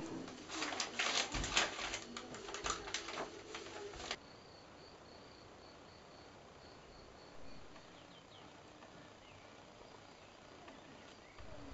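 Dense crackling and rustling of bags being handled for about four seconds, then it cuts off to a quiet background where small birds chirp faintly, with a quick series of short high peeps.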